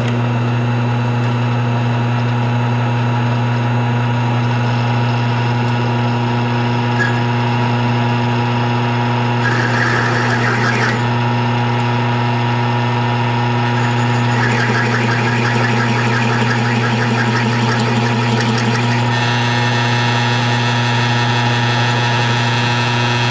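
Milling machine spindle starting suddenly and running with a steady hum while a fluted bit opens up a wheel-stud hole in a steel hub flange. The cut adds a rougher cutting sound briefly about ten seconds in and again for about five seconds a little later.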